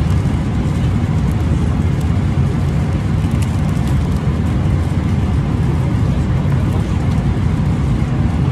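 Steady low roar of a jet airliner's cabin in flight: engine and airflow noise. Light rustling and ticks of food packaging being handled on the tray table.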